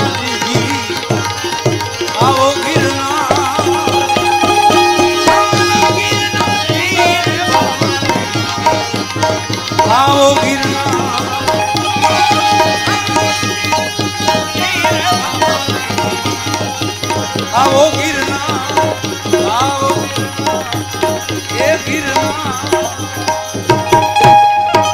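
Instrumental Gujarati bhajan music: tabla beating a rhythm under a melody instrument that slides and wavers in pitch over held drone notes.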